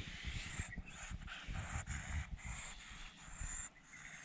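A cat rubbing up against a stroking hand right at the microphone: close, irregular low rustling and soft thuds of its fur and body brushing past.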